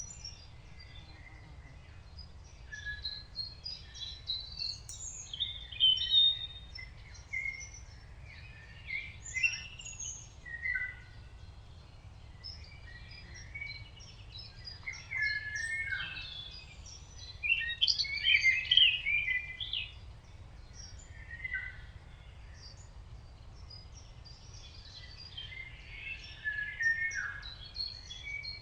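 Several wild birds singing at once, a chorus of overlapping short chirps, trills and whistled phrases, busiest in the middle, over a faint steady low rumble.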